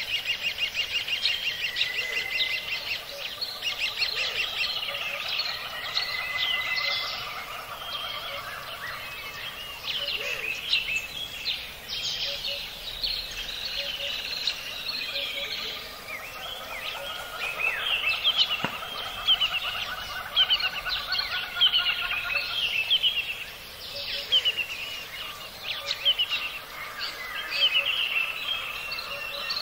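Rainforest soundscape: many birds calling at once, with quick chirps, short whistles and trills overlapping over a steady background hiss.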